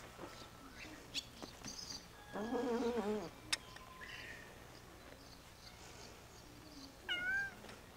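Cats meowing: a long, wavering meow about two and a half seconds in, then a short, higher meow near the end. A sharp click comes just after the first meow.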